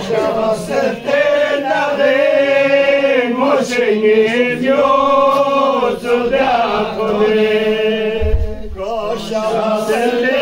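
Men chanting a devotional qasida together without instruments, in long, drawn-out, wavering notes.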